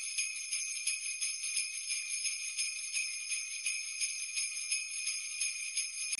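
Jingle bells shaken in a steady rhythm, about four or five shakes a second, with a bright continuous jingle.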